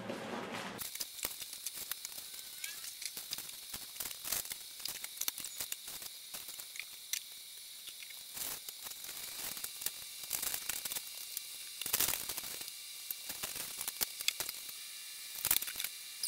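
Plastic and paper shopping bags rustling and crinkling as groceries are lifted out of them, a dense run of sharp crackles over a steady hiss.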